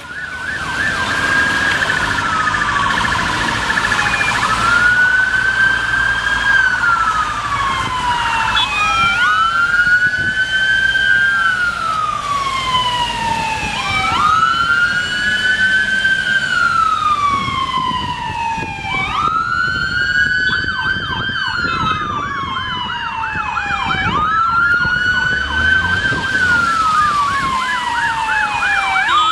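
Ambulance sirens on a two-vehicle emergency ambulance and rapid-response car convoy, with a wail that rises quickly and falls slowly about every five seconds. A second siren overlaps it at first, and a fast yelp of about three or four sweeps a second joins it for a few seconds around twenty seconds in.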